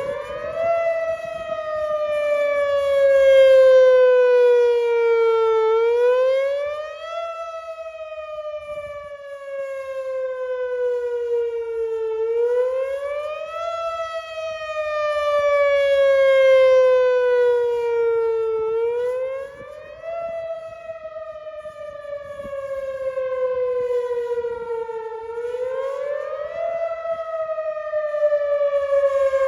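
Whelen WPS-4004 electronic outdoor warning siren sounding a repeating tone that rises quickly for about a second, then falls slowly over about five seconds, cycling about every six and a half seconds. Its loudness swells and fades slowly, peaking roughly every thirteen seconds.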